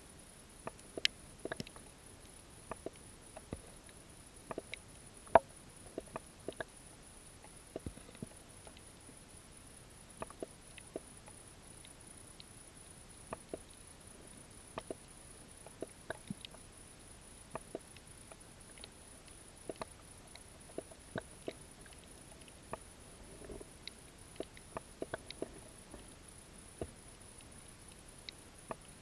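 Irregular sharp underwater clicks and snaps, a few a second at uneven spacing, the loudest about five seconds in, over a faint steady high whine.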